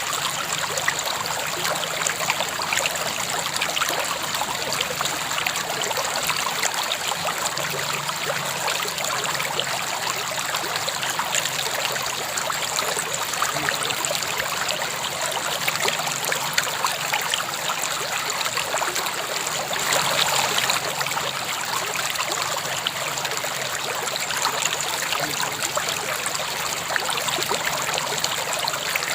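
River water flowing steadily over stones, an even rushing and trickling with many small splashes; a brief slightly louder surge about twenty seconds in.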